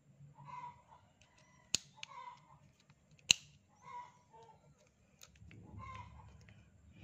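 Two sharp metallic clicks about a second and a half apart, as steel bit extensions and a quick-release bit holder are fitted together, over short clucking calls of chickens in the background.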